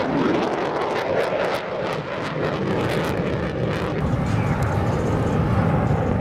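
Jet aircraft flying over, a steady engine rush, with a run of sharp crackles from about one to four seconds in.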